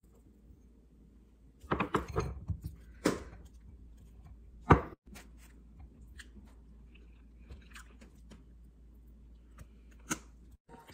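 Kitchen handling sounds: a few sharp knocks and clinks of a knife and wooden chopsticks against a glass bowl while strawberries are cut into it, the loudest knock a little before halfway.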